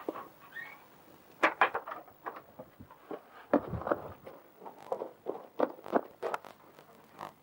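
An irregular series of knocks and clicks of varying strength, with a heavier, deeper thud about three and a half seconds in.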